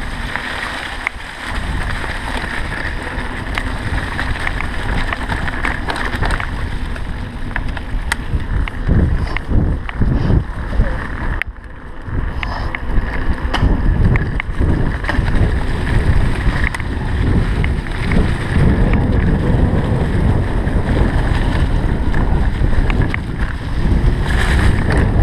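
Mountain bike descending a dirt singletrack: wind buffeting the microphone over the rumble of tyres on the trail, with frequent sharp rattles and clacks from the bike over bumps. The noise eases briefly about halfway through.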